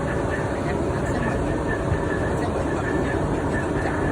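Automatic shaft build-up welding machine running: a steady, dense crackling noise with an even rumble underneath.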